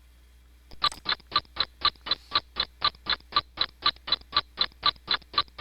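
Clock-ticking sound effect: sharp, even ticks at about four a second, starting about a second in.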